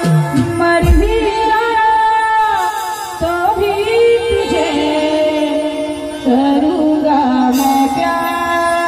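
A woman sings a Chhattisgarhi folk song into a microphone over electronic keyboard accompaniment, amplified through a stage sound system.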